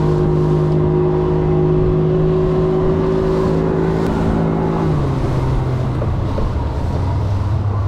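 Two-stroke outboard motor running steadily under way. About five seconds in its pitch drops and settles lower.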